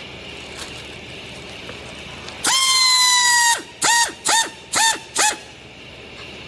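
Compressed-air tool on an air hose blowing off with a whistling tone: one long blast of about a second, then four short blasts in quick succession, each swooping up as the air starts and down as it stops.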